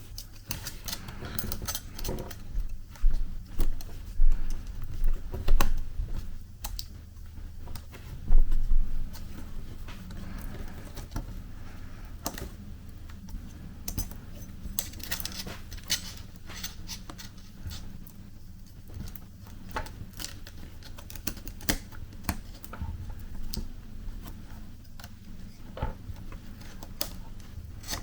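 Small hard clicks, taps and rattles of tools and small parts being handled inside an open laptop during reassembly. They come thickest and loudest in the first nine seconds or so, then go on as scattered lighter clicks.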